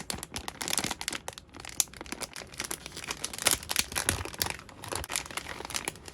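Crinkling plastic packaging handled and opened, a resealable kids' meal toy bag pulled apart and its contents rustled out, with a rapid run of crackles and small clicks.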